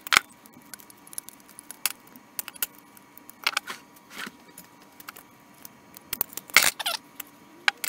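Metal clinks and clatter of work on a small bench vise, irregular and scattered, with a few louder knocks about a quarter of the way in, around the middle and near the end.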